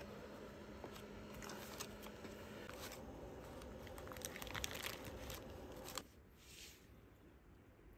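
Baking paper crinkling and rustling as hands peel it back from a cheesecake in its box, with many small crackles; it goes much quieter about six seconds in.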